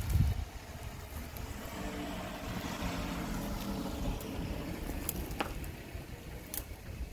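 A faint engine hum, steady in pitch through the middle, with wind rumble on the microphone at the start and a few light clicks near the end.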